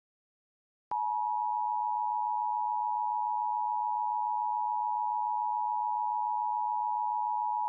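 Emergency Alert System attention signal: a steady two-tone alarm (853 and 960 Hz) that starts sharply about a second in and holds unbroken. It marks an emergency alert about to be read out.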